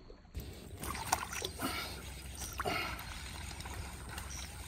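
Water splashing and sloshing in irregular bursts as a hooked snakehead thrashes in shallow marsh water.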